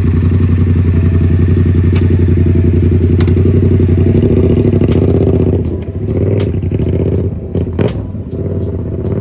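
A 2017 Yamaha FZ-07's parallel-twin engine idling steadily with a rapid, even exhaust pulse. About five and a half seconds in the steady running gives way to irregular clatter and sharp knocks.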